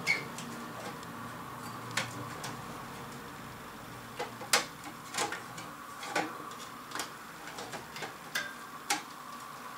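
Irregular clicks and small knocks of hands and tools working inside an opened amplifier's metal chassis, a dozen or so at uneven intervals, over a faint steady hum.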